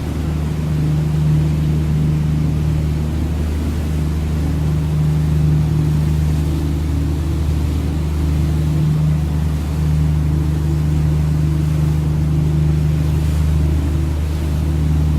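Engine of a Seine sightseeing cruise boat running with a steady low drone, over a soft hiss of water and air.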